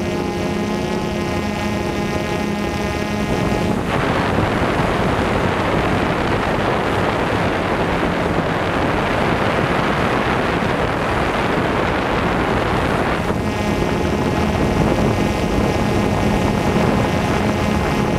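Steady, even hum of a small quadcopter drone's propellers, giving way about four seconds in to a loud rush of wind noise on the microphone for about nine seconds, after which the propeller hum returns.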